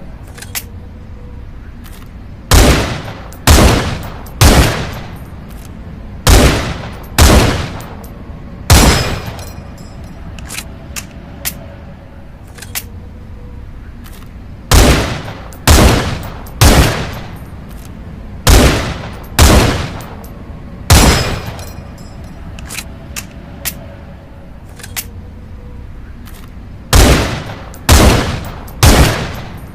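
Rifle shots fired in groups of three, about a second apart, each with a short trailing echo. Fainter single clicks fall in the gaps between groups, over a steady background hiss.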